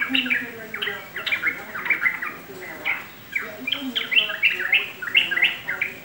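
Caged yellow-vented bulbul (trucukan) singing: clusters of quick, short chirping notes that sweep downward in pitch, with brief pauses between the phrases.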